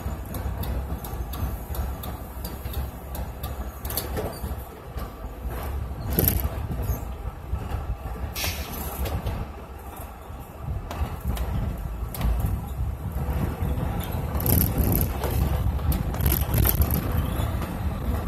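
Motor coach driving: steady low engine and road noise, with scattered short clicks and rattles.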